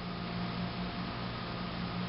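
Modern Toys Overland Express 3140 battery-operated tin toy train's small electric motor running, a steady whir with a low hum and hiss.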